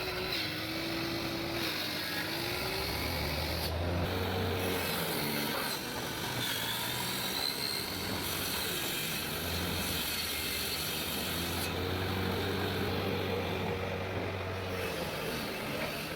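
Wood being worked with tools, with scraping and rubbing. The sound changes abruptly several times, in short clips joined one after another.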